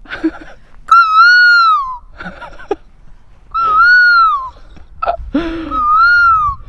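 A person making hooting calls through cupped hands: three long, high, pure hoots, each rising slightly and then falling away, about two seconds apart, with breathy sounds between them.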